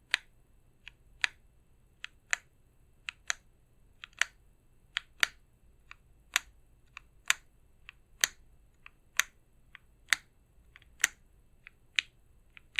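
Mechanical keyboard switches under SA keycaps on a stacked-acrylic keyboard with an FR4 plate, pressed one keystroke at a time about once a second. Each stroke is a sharp clacking pair, a softer click followed by a louder one.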